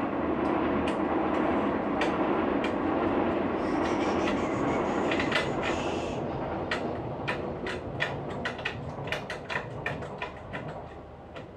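Internal parts of a Lavazza Espresso Point EP 2100 coffee machine rattling as they are worked loose by hand. A steady, dense rattle for the first half gives way to a run of sharp clicks and knocks.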